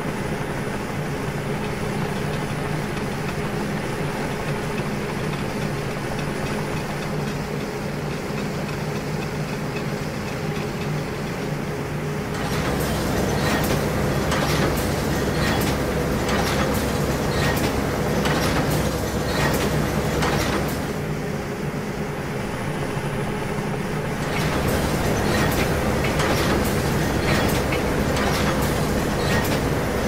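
Heavy machinery-like sound effect. A steady low hum comes first; about halfway in, a deep rumble with rapid, irregular clattering sets in. It drops away for a few seconds and then starts again.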